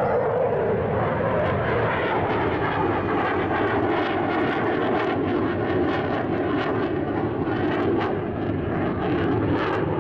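Jet noise of a McDonnell Douglas RF-4E Phantom II's twin General Electric J79 turbojets as the jet flies over. It is loud and steady, with a tone that drops in pitch during the first second and then holds.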